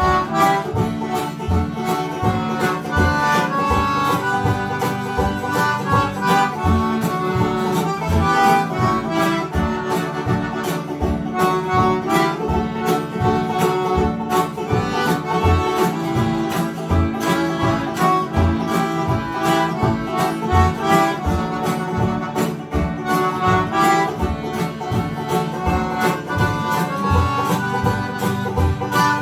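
Live acoustic folk-dance music: a concertina plays the tune over strummed acoustic guitars, with low bass notes on a steady, even beat.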